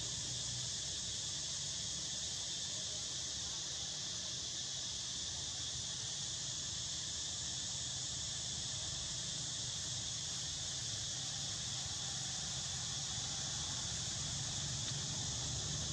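Steady, high-pitched chorus of insects droning without a break, over a low steady hum.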